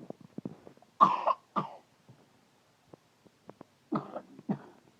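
A young girl's chronic wet cough: four coughs in two pairs, two about a second in and two more near the end.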